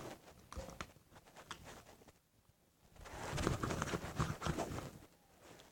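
Freshly activated white-glue slime being squished and worked, giving sticky clicks and squelches: a scattering of small clicks at first, then a denser, crackling squish from about three seconds in.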